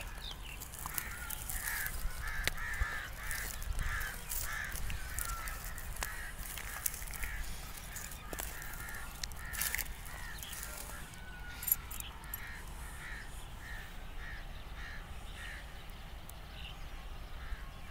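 A bird calling over and over in short calls, about two a second, with one sharp click about two-thirds of the way through.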